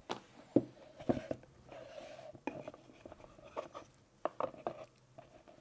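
Light, irregular knocks, taps and brief scrapes as a small wooden diorama frame is handled and turned on a desk.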